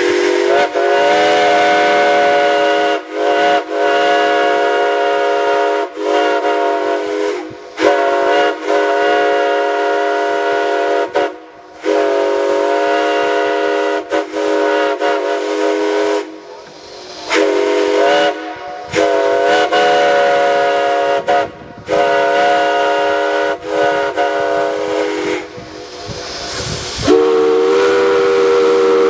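Chime steam whistle blown in a long series of blasts of varying length, each a chord of several tones sounding together, with steam hissing through the short gaps. Near the end a different, lower-pitched whistle sounds.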